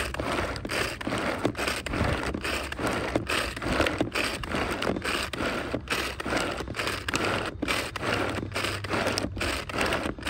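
Pull-cord manual food chopper worked in quick repeated pulls, its spinning blades whirring and rattling inside the jar as they chop and mix fried chicken salad.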